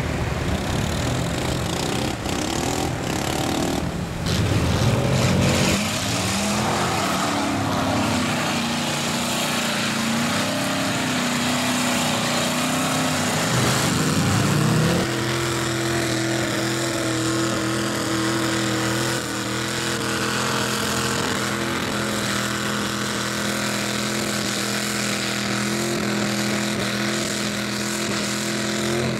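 Engines of four-wheelers and mud-bogging pickup trucks revving hard while driving through deep mud and water. The engine pitch rises and falls in the first half, then holds steady at high revs from about halfway on.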